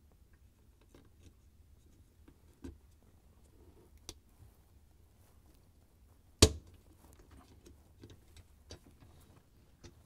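Plastic rear dish rack stop being clipped onto the end of a dishwasher's metal rack track, snapping into place with one sharp click about six and a half seconds in. A few faint clicks and handling sounds come before and after it.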